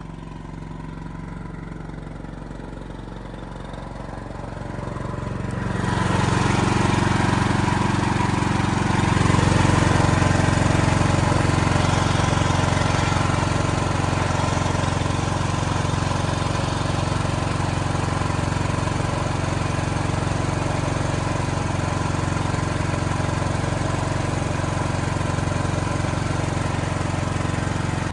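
Standby backup generator's engine running steadily while carrying the building's full electrical load. It grows markedly louder between about four and six seconds in, then holds an even drone.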